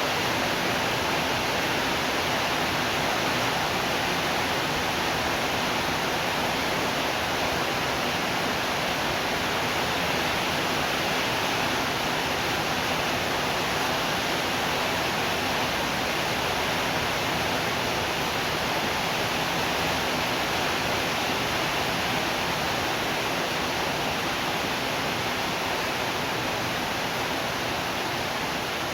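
Steady heavy rainfall: an even, unbroken hiss with no thunder and no individual drops standing out.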